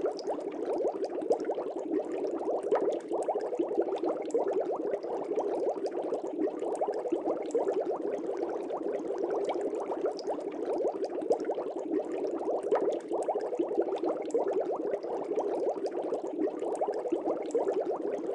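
Aquarium water bubbling steadily: a dense, even stream of small pops and gurgles.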